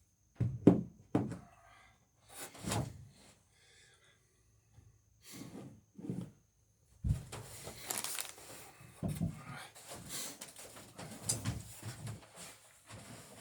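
Irregular hammer knocks and thunks on the wooden planking of a dory hull as rivets are driven, a few separate blows over the first seven seconds, then a busier stretch of clattering and scraping.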